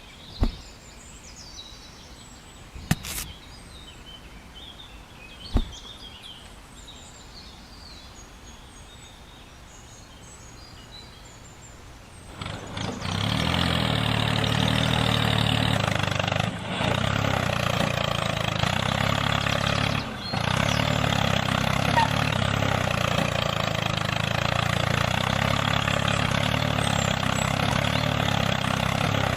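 Birds chirping in quiet outdoor surroundings with three sharp knocks, then about twelve seconds in a motor starts up and runs steadily and loudly, dipping briefly twice.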